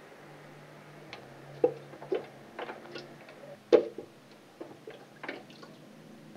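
Plastic cup scooping water out of a glass aquarium during a water change: irregular knocks and clinks of the cup against the glass with splashing water, the loudest knock a little under four seconds in. A faint steady low hum runs underneath.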